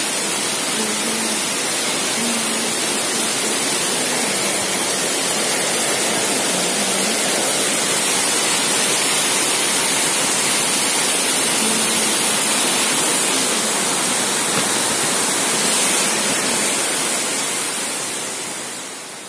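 Heavy monsoon rain pouring down, a loud, steady hiss of rainfall that fades out at the end.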